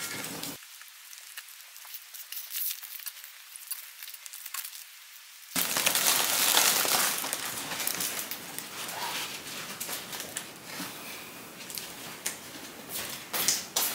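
Foil and plastic balloons crinkling and rustling as they are handled. A faint, thin crackle gives way about five and a half seconds in to louder, dense crinkling.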